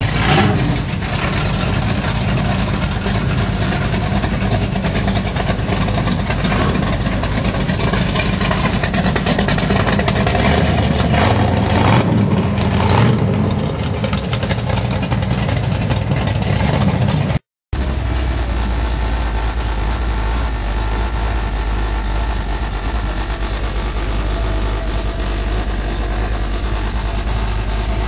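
Dodge Challenger engine running as the car pulls away slowly, loud with a deep low rumble. After a brief dropout at a cut, the engine runs on steadily as heard from inside the cabin while cruising.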